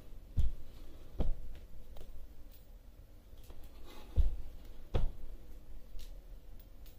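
Dull thuds of fists being set down on a hardwood floor during knuckle push-ups, four main ones in two pairs (one pair about a second in, the other around four to five seconds in), with faint clicks and scuffs between.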